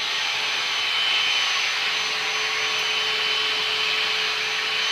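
Vacuum cleaner running steadily: a rush of air with a steady whine running through it.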